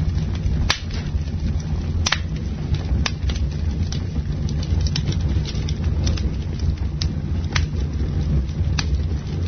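Campfire burning with steady crackling over a low, even rumble, and half a dozen sharp pops from the burning wood scattered through, the loudest about two seconds in.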